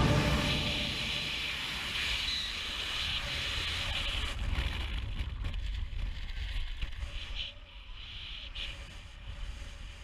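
Wind rumbling and hissing over a helmet-mounted camera's microphone as a skydiver's parachute opens. The rush is loud at first and dies down to a softer rumble as the canopy inflates and the fall slows.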